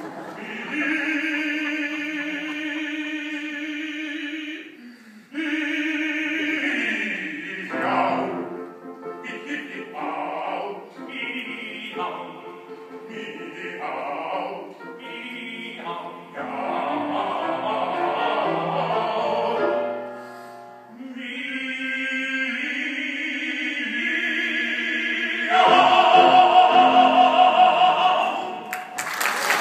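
Two male opera singers singing a comic opera duet, with long held notes, ending together on a loud held note with wide vibrato. Applause breaks out at the very end.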